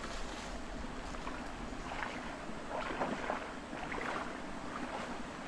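A person wading through a shallow stream, water sloshing and splashing with each step in a few uneven bursts.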